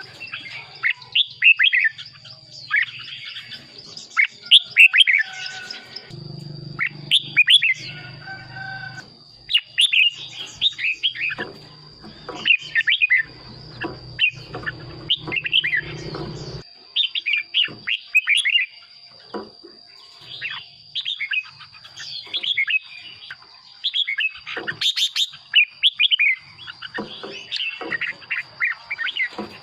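Red-whiskered bulbul singing, a run of short, quick, repeated whistled phrases with brief gaps between them. A steady high-pitched whine sits underneath throughout.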